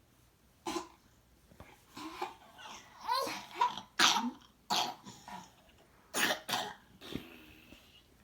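Playful mouth noises between a baby and an adult: about six short, cough-like bursts with a few brief cooing vocal sounds between them.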